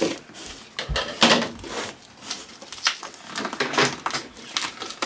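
A cardboard box being opened: a scissor blade slitting the packing tape, then hands pulling at the tape and flaps. It comes as a series of uneven scraping strokes, the longest about a second in.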